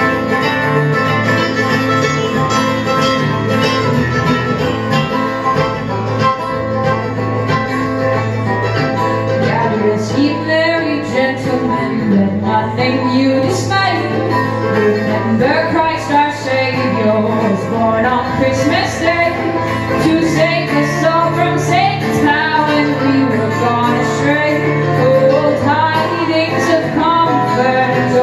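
Live acoustic string band playing a bluegrass-style song on mandolin, acoustic guitar and banjo, with a woman's lead vocal coming in about ten seconds in.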